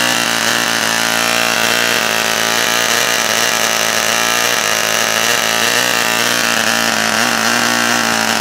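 Vintage Frog 500 spark-ignition two-stroke model aircraft engine running steadily on petrol, its propeller spinning, with a high, even buzz.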